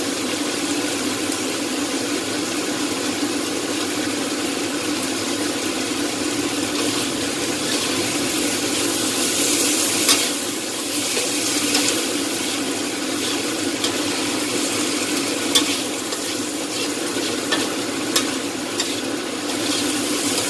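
Stir-fry of long beans, tempeh and chicken gizzards sizzling steadily in a steel wok, with a metal spatula scraping and clinking against the pan a few times.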